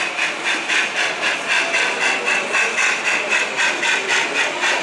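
O-scale model steam locomotive's sound unit chuffing steadily as it runs, about four hissing exhaust beats a second.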